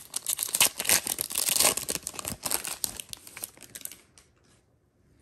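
Foil wrapper of a Panini Prizm football card pack being torn open, a dense crinkling that stops about four seconds in.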